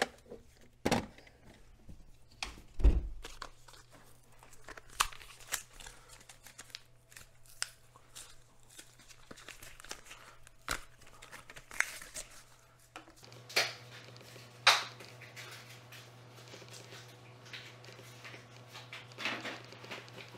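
Hand-handling noises: packaging torn and crinkled, with scattered clicks and knocks and a few louder thumps.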